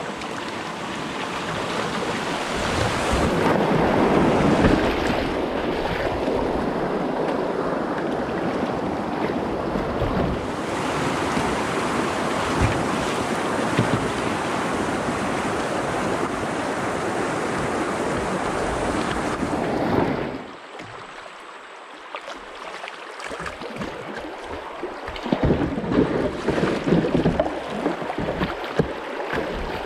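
Rushing water of a shallow whitewater riffle around a kayak, heard close to the hull, loudest a few seconds in. About twenty seconds in the rush drops off suddenly to calmer moving water, with irregular paddle splashes near the end.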